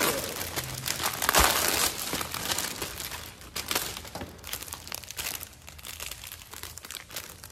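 Thin clear plastic packaging bag crinkling and rustling as it is handled and shaken, loudest about a second and a half in, then lighter rustling.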